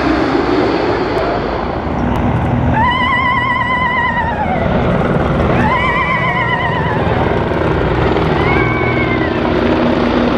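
Steady noise of military aircraft flying low overhead: a C-130 Hercules four-engine turboprop passing, then a formation of helicopters. Over it, a warbling whistle-like tone rises and falls three times, the first and loudest about three seconds in.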